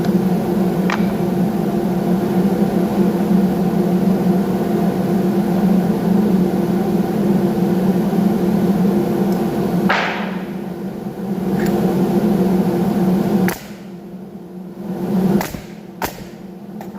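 Electric woodworking machine's motor running with a steady hum, easing off briefly about ten seconds in and cutting off a few seconds before the end, followed by a few sharp knocks.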